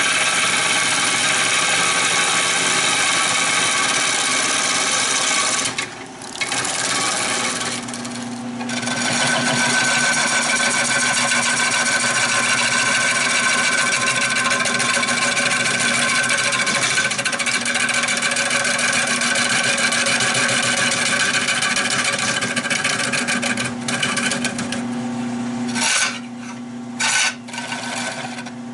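Wood-turning gouge cutting into a spinning redbud bowl blank on a Nova 16/24 lathe while hollowing the bowl, a loud steady scraping over a steady hum. The cut breaks off briefly about six and eight seconds in and twice near the end.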